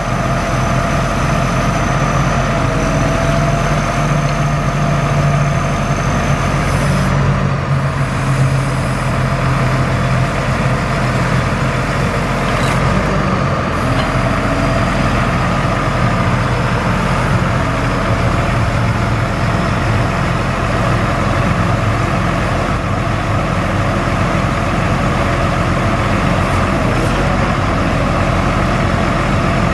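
Truck engine running steadily to drive the hydraulics of a National N80 service crane while the boom is worked, a steady hum with a thin whine above it that shifts slightly in pitch about seven seconds in.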